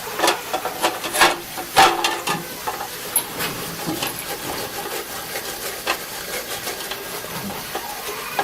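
Oil burner's filter being cleaned by hand: a quick run of knocks and scrapes, then a few more now and then, over a steady hiss.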